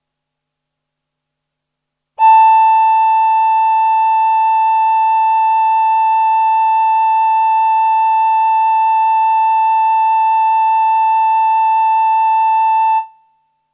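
Roland VP-330 synthesizer playing its male human voice sound with delay: one steady note starting about two seconds in, held for about eleven seconds with a slight wavering in its upper overtones, then fading out quickly.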